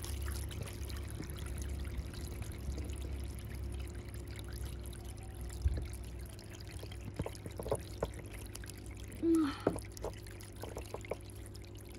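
Small decorative water fountain trickling steadily over faux rock, with a few light clicks of a plastic toy horse being moved against it.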